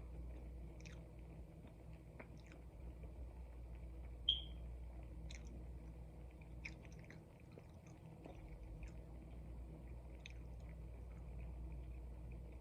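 Close-miked chewing of a pancake roll-up, with soft scattered wet mouth clicks over a steady low hum. A brief high-pitched chirp stands out about four seconds in.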